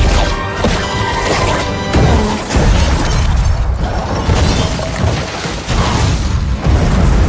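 A movie action soundtrack: score music under heavy crashes of cars wrecking and flipping, with glass shattering. Loud hits come at the start, around two seconds in and near the end.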